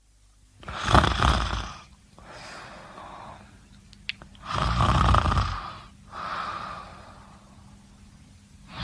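A person snoring: two loud snores about three and a half seconds apart, each followed by a softer, longer breath sound, with a brief click between them.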